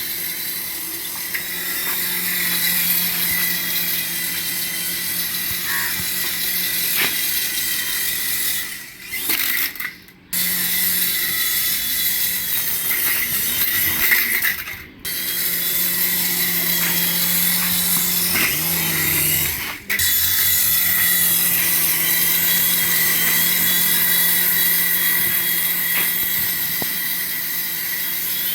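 Small electric motor of a remote-control toy whirring steadily, stopping briefly about four times and starting up again.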